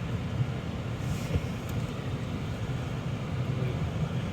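Steady low rumble of a car driving slowly on a snowy road, heard from inside the cabin: engine and tyre noise, with a couple of faint small knocks.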